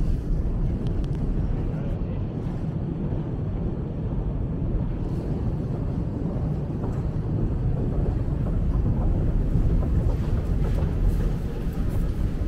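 Steady low rumble of a metro escalator running, with the hum of the station hall around it.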